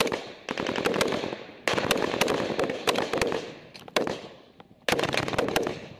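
Close gunfire in a firefight: rapid bursts of automatic rifle fire, a fresh burst about half a second in and another near two seconds, dying down briefly around four seconds before another burst near the end.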